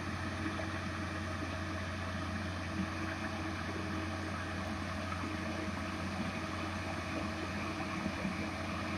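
Diesel engine of a Plasser & Theurer ballast regulator running steadily as the machine works slowly along the track, a low, even hum.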